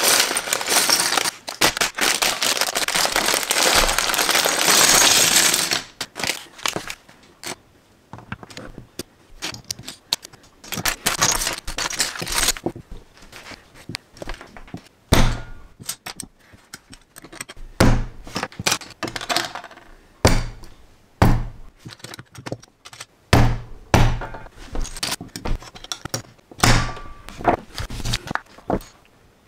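A plastic bag of LEGO pieces crinkling and being torn open for about six seconds. Then loose LEGO bricks click and clatter on a tabletop as they are handled, with scattered dull knocks.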